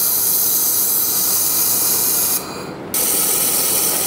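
Handheld laser welder welding a thin metal plate: a steady hiss that breaks off for about half a second past the halfway point, then starts again.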